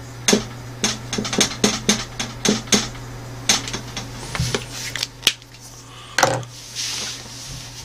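Whiteboard marker tapping and scratching across a whiteboard as a short phrase is written, a quick irregular string of clicks for the first few seconds. Later come a couple of louder knocks and a brief rustle, over a steady low hum.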